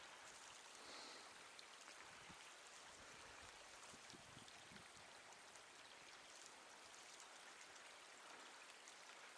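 Near silence: a faint, steady trickle of a creek, with a few soft low thuds a few seconds in.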